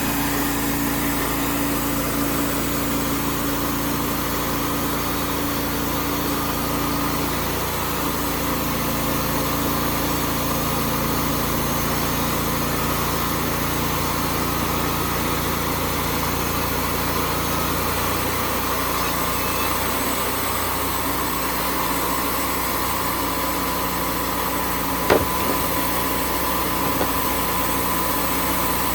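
Wood-Mizer portable band sawmill running steadily under engine power, its tone changing at about 7 and 18 seconds in. A single sharp click about 25 seconds in.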